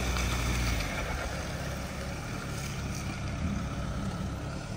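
Mahindra Thar off-road SUV's engine running with a steady low drone as the Thar works up a slippery off-road climb.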